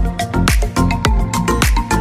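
Background music with a steady beat and deep kick drum, an upbeat electronic track.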